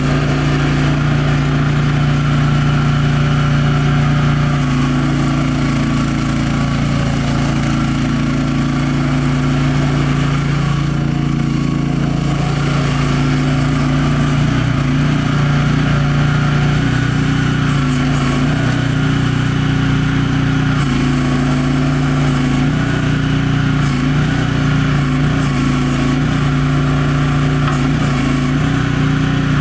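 TOFT12 mini excavator's engine running steadily while its boom, arm and bucket are worked hydraulically. The engine note wavers slightly from about halfway through as the machine is worked.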